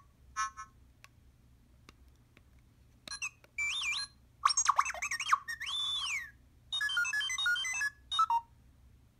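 Hot Toys R2-D2 figure's built-in speaker playing R2-D2 droid beeps and whistles: a short chirp, then after a pause of about two seconds a string of warbling whistles, rising and falling glides and a quick run of stepped beeps, ending a little after eight seconds in.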